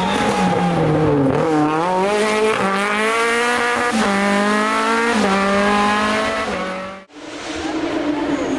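Hillclimb race car's engine at high revs: the pitch falls for the first second or so, then climbs again in steps with short dips at each gear change. About seven seconds in the sound cuts off abruptly and a different car's engine comes in on a steady note.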